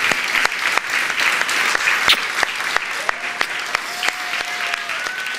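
Theatre audience applauding, the clapping slowly thinning and growing quieter.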